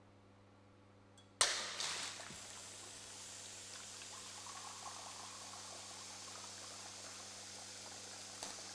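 A Rube Goldberg machine trips with a sudden loud clack, then a steady rushing, liquid-like hiss runs on, with a smaller click near the end.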